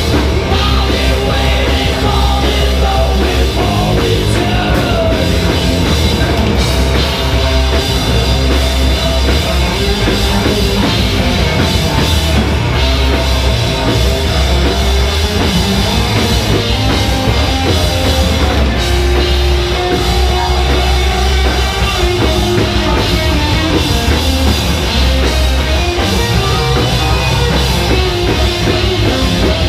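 A live rock band playing loud and without a break: distorted electric guitar, bass guitar and a drum kit.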